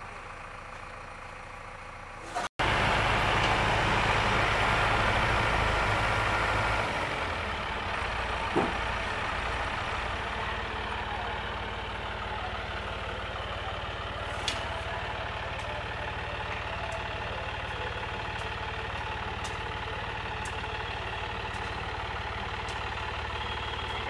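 Diesel engines of a JCB 3DX backhoe loader and a John Deere tractor running steadily. The sound jumps louder at a cut about two and a half seconds in, eases off a little around seven seconds, and a couple of short sharp knocks stand out over the rumble.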